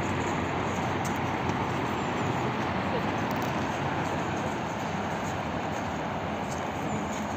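Steady city street ambience: road traffic running as a constant wash of noise, with people's voices mixed in.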